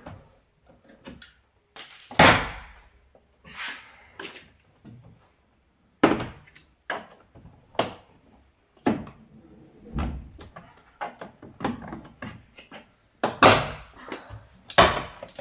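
Irregular plastic knocks and clicks from a Fiat 500 door's clipped-in trim panel being pried and worked loose, the clips popping and the panel knocking against the door. The loudest knocks come about two seconds in and twice near the end.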